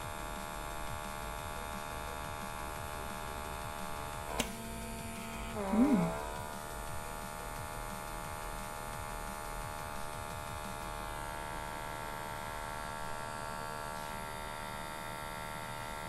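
Handheld pore suction vacuum running with a steady electric hum as its tip is held against the skin. A sharp click comes about four seconds in, and a brief murmur of voice about six seconds in.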